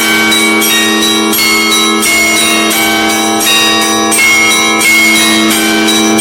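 Russian Orthodox church bells ringing a festive Easter-week peal: small bells struck in a quick, changing pattern, several strikes a second, over the steady hum of larger bells.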